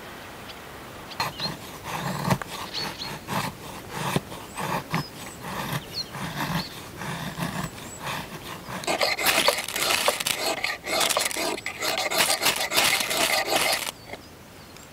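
A knife carving feather-stick curls off a dry kindling stick in repeated short strokes, then from about nine seconds in a ferro rod scraped hard and fast against its striker over a bundle of wood shavings, throwing sparks until the shavings catch.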